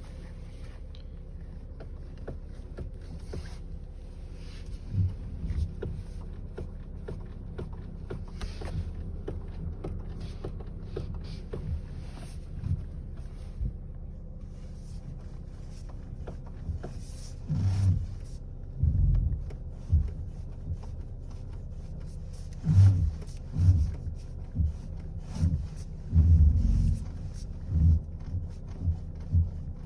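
The steering column of a 2020 Skoda Rapid gives irregular low knocks and cracks over the steady hum of the running car. The knocks are sparse at first and come thick and fast in the second half. This knocking only appears in frost of −10 °C and below on a car that is cold after standing overnight, and it goes away once the car has warmed up.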